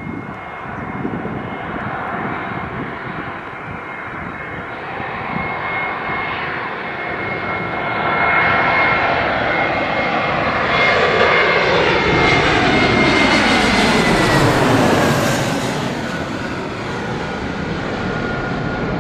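Jet airliner passing by: engine noise with a high fan whine that builds to its loudest about two thirds of the way in, then drops in pitch as the aircraft goes past.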